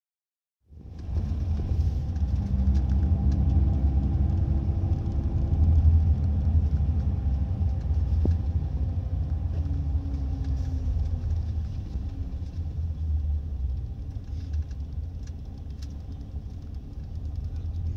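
Scania L94IB city bus's engine and ZF Ecomat automatic gearbox heard from inside the passenger cabin while driving: a steady low rumble with a whine that falls in pitch about two-thirds of the way through. It is loudest around a third of the way in and then eases off.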